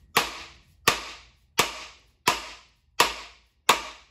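Six evenly spaced hammer blows, about one every 0.7 s, on a wooden block set against a piston in a Ford 4.6L DOHC aluminium engine block. Each blow rings briefly. The piston is stuck in its bore and is being tapped out.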